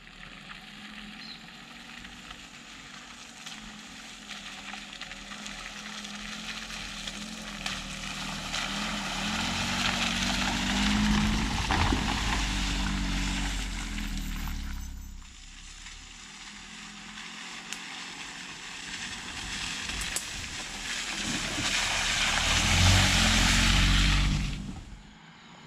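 Chevrolet Prisma 1.4's four-cylinder engine running, with its tyres on a muddy dirt road, as the car drives up and passes close by. The sound builds to a peak about halfway through, drops off suddenly, then builds again to a second, louder pass just before the end and cuts off.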